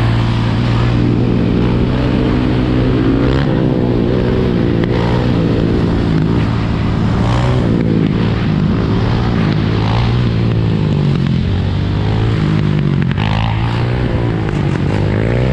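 Dirt bike and sport quad engines running on the move, with the pitch rising and falling as the throttles are worked during a quad wheelie.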